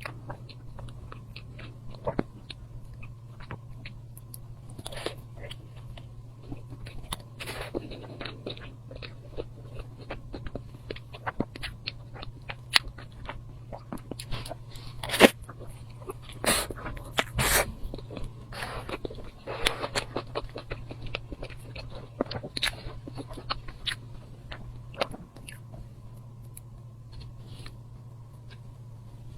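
Close-up mukbang eating sounds: a person biting and chewing dessert, with irregular mouth clicks and smacks, a few louder ones around the middle, over a steady low hum.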